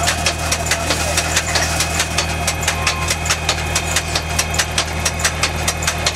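Ferrari Futura Twin self-propelled transplanter running at a steady engine note, with an even, rapid clicking of its planting mechanism at about four clicks a second.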